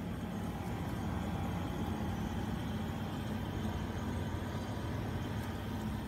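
Sharp window air conditioner running on high cool, heard from its outside rear: a steady low hum.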